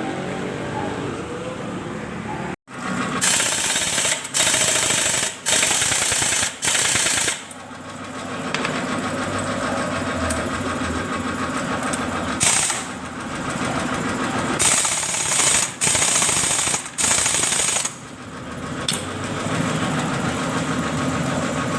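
Impact wrench run in repeated short bursts, each starting and stopping sharply, in two clusters. A steady mechanical hum runs between the bursts.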